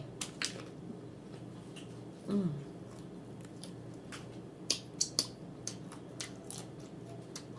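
Close-up chewing of fried chicken: scattered wet clicks, smacks and small crunches of a mouth eating, bunched together from about halfway through. A short vocal sound comes from the eater about two and a half seconds in.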